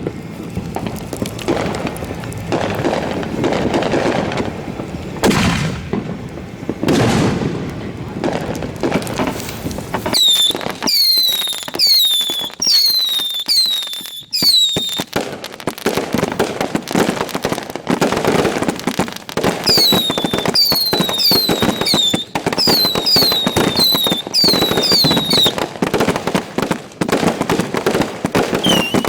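Fireworks going off at close range: a dense run of booms and crackling. From about a third of the way in, many short whistles that fall in pitch sound over the crackle.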